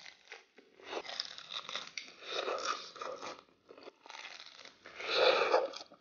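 Crunching and chewing on the crisp, flaky pan-fried crust of a Chinese chive pocket (jiucai hezi). Many small crackles at first, then a louder bite about five seconds in.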